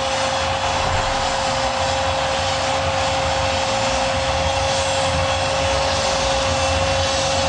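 Spanish-language TV commentator's drawn-out goal cry, a single "gol" held at one steady pitch without a break, over the stadium crowd cheering.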